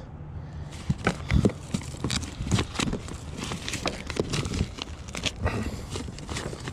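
Irregular clacks, taps and rustles of small items being handled and sorted through by hand, a few knocks a second.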